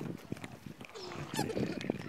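Ring-tailed lemurs moving about close to the microphone with scattered short knocks and rustles, and a few brief calls that glide in pitch.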